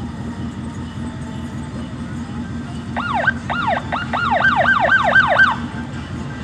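A siren in a fast yelp, about four rising-and-falling sweeps a second, sounds for about two and a half seconds starting about three seconds in, over the steady rumble of car and road noise.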